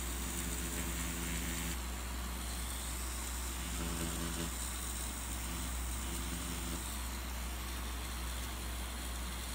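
Cartridge tattoo machine running with a steady electric buzz as its needle works white ink into synthetic practice skin. Its tone shifts in a few short stretches while the needle is on the skin.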